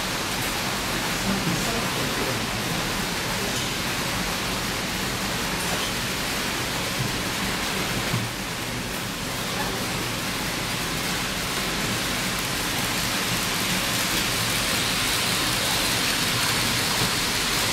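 Steady, even rushing noise of model trains running on the layout's track, wheels and motors together, much like rain.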